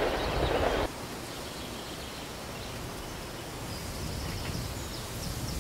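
Quiet open-air riverside ambience with faint, short, high bird chirps in the second half. A louder, even rushing noise cuts off abruptly about a second in.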